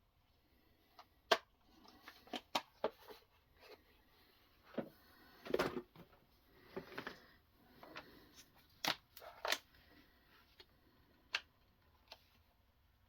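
Irregular clicks and knocks with a few short scrapes: a knife and guided sharpening system being handled.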